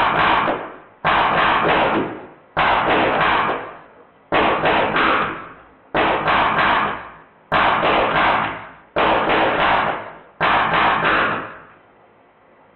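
Drozd Blackbird electronic BB gun, running on high-pressure air, firing short bursts of several rapid shots each, one burst about every second and a half, with BBs hitting the target. The firing stops about a second before the end.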